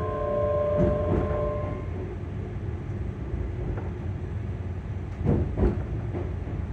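ScotRail Class 385 electric train's traction motor whine, several steady tones that fade out about two seconds in as the train comes to a stop. A low rumble runs on after, with a couple of clunks a little past five seconds.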